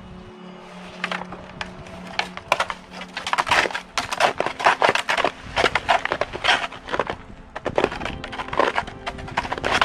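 Footsteps crunching through icy, crusted snow: irregular crunches and cracks starting about a second in, densest in the middle.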